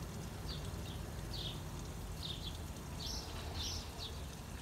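A small bird chirping over and over, short high notes about twice a second, over a steady low rumble.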